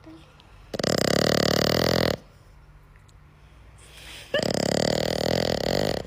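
Small dog snoring loudly: two long rattling snores like a jackhammer, each about a second and a half, with a quiet breath between them.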